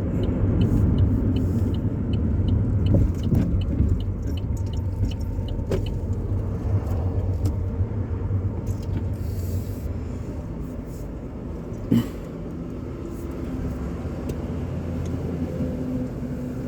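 A car being driven: a steady low rumble of engine and road noise, with a single sharp knock about twelve seconds in.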